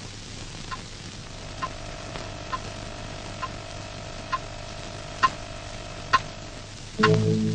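Sparse electronic film score over tape hiss: a soft tick repeating a little faster than once a second, with a single held tone that comes in about a second in and stops shortly before the end. Just before the end, deeper sustained chords come in, much louder.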